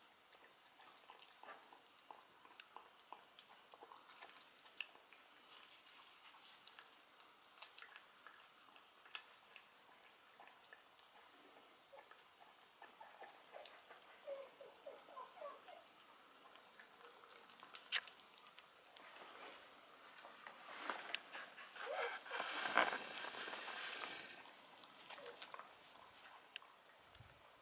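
Young puppy eating wet canned food from a stainless steel bowl: faint, scattered wet licking and chewing clicks. The licking grows louder and busier for a few seconds near the end.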